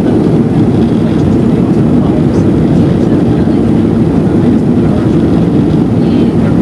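Steady low roar of an Airbus A330-300 in flight: jet engines and airflow as heard inside the passenger cabin at a window seat.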